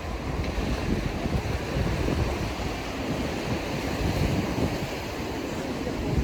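Wind buffeting the microphone in irregular gusts over a steady rushing outdoor background.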